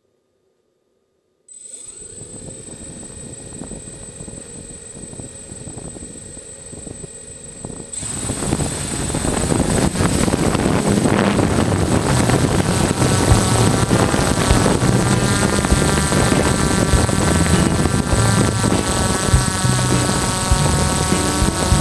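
DJI F550 hexacopter's six electric motors and propellers: silent at first, they start about a second and a half in and spin steadily at idle, then throttle up sharply about eight seconds in and run loud and steady as the craft lifts off and flies, their pitch wavering near the end.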